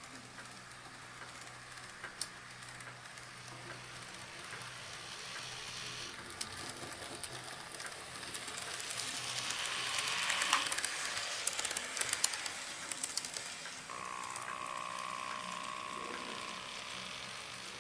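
N gauge model train running around its track: a small motor whirring and wheels clicking and rattling over the rails, growing louder to a peak about ten seconds in, then easing off. A brief steady whine sounds near the end.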